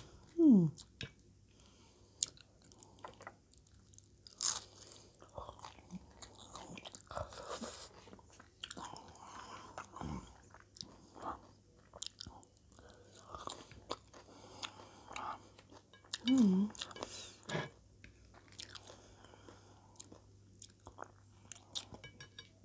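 Close-up chewing and crunching of nachos, tortilla chips with sauce and toppings, in irregular bites with mouth clicks and smacks. A short falling vocal murmur comes about half a second in and again about two-thirds of the way through.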